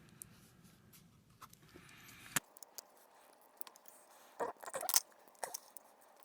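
Faint handling of a small electronics part during a teardown: a sharp click, then short scrapes and rustles from a small tool picking at a sticker over the iPod's hidden screws.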